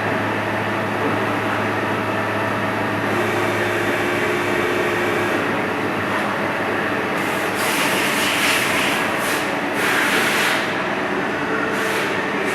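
Vertical CNC lathe running with a steady mechanical hum and whine. About halfway through, several bursts of hissing come in.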